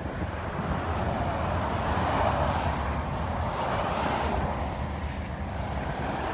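Highway traffic going by, with tyre and engine noise swelling about two seconds in, and wind buffeting the microphone.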